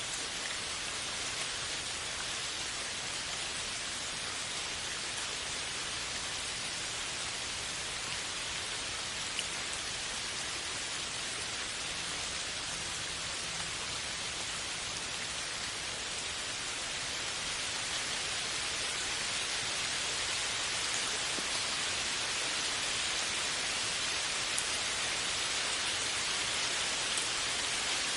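Steady rain falling, an even hiss of many drops, growing a little louder about two-thirds of the way through.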